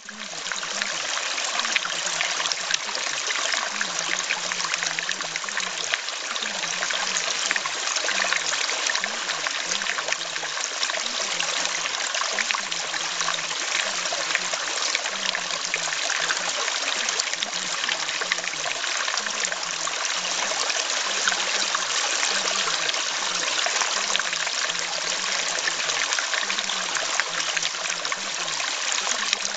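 Steady running-water sound like a trickling stream, with a faint, low, choppy murmur underneath that shifts in pitch every half second or so.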